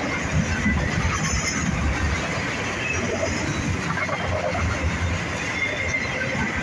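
Empty autorack car-carrier freight cars rolling past, a steady rumble and clatter of wheels on rail, with a thin high squeal coming and going.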